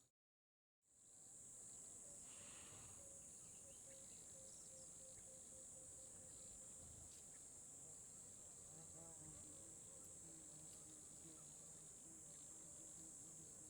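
Faint, steady high-pitched chirring of crickets, broken by a brief dropout to silence just after the start.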